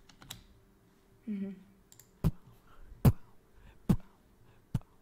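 Computer mouse clicking: a handful of sharp single clicks, roughly a second apart. A short sound from a voice comes about a second in.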